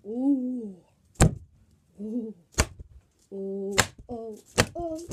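A stretchy rubber toy snapping sharply four times, about once a second, between a child's wordless hums, some rising and falling and some held.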